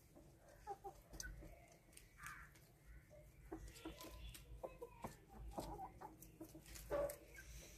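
Hens clucking faintly in a series of short calls, with soft crunching clicks from rabbits chewing spinach leaves.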